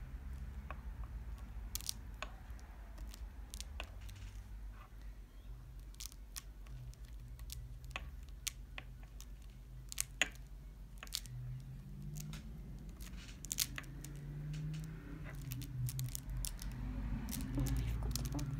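Honeycomb beeswax sheet being pressed and rolled around a cotton wick by hand: scattered light clicks and crackles of fingers on the wax and the table, over a low steady hum.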